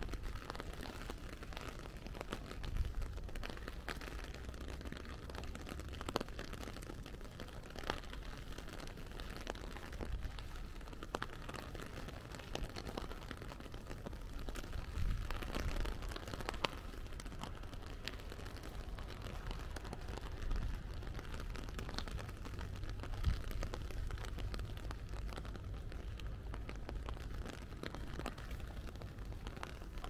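Steady rain falling, with many separate drops ticking close by and a low rumble underneath.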